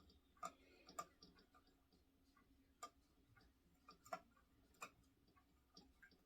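Faint, scattered light clicks and taps, about half a dozen at irregular intervals, over a quiet room hum.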